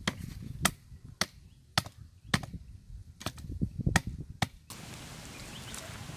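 Machete chopping at the base of a thin sapling: a run of sharp strikes about two a second, with the plant's stem and leaves rustling. The strikes stop about three-quarters of the way through, giving way to a steady faint hiss.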